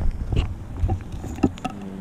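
Wind buffeting an action camera's microphone as a low rumble, mixed with scattered knocks and rustles from the camera and its mount being handled. The rumble drops away about halfway through.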